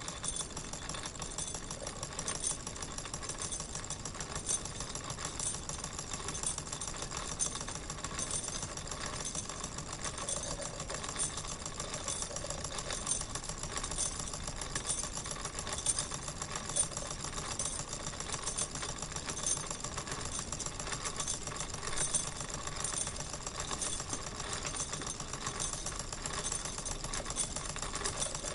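Wilesco toy steam engine running steadily: a fast, even mechanical purring clatter that keeps the same pace throughout.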